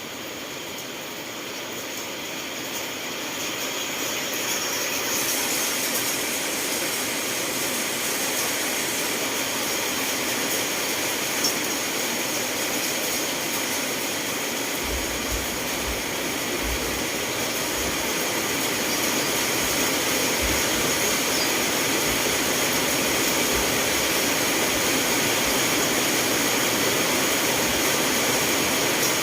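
Steady rainfall, an even hiss that swells a little over the first few seconds, with a few soft low bumps about halfway through.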